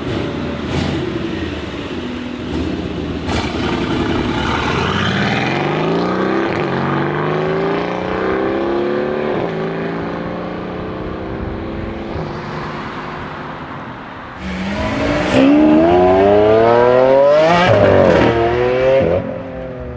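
Mercedes-AMG GLC63 S's twin-turbo V8 accelerating hard through the gears, the pitch climbing and dropping back at each upshift. About two-thirds of the way in it gets much louder with a steep climb in pitch, then drops away near the end.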